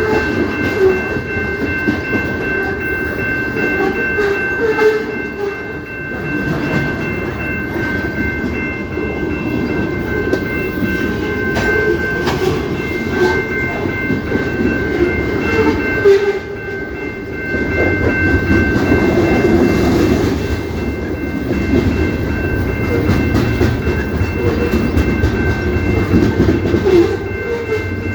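A CP Rail train rolling past: a continuous rumble with wheel clatter, and three steady high tones held over roughly the first half. A deeper low rumble comes in about two-thirds of the way through.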